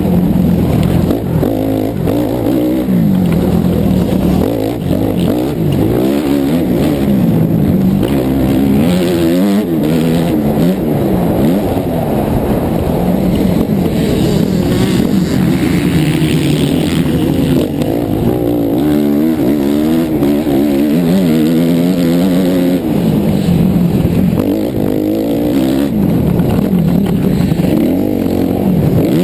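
Suzuki RM-Z four-stroke motocross bike engine under race throttle, heard up close. Its pitch climbs and drops again and again as the rider accelerates, changes gear and backs off.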